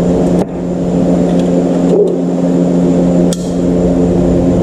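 A steady, loud mechanical hum with a few sharp clicks, about half a second, two seconds and three and a third seconds in, from tools and parts being handled.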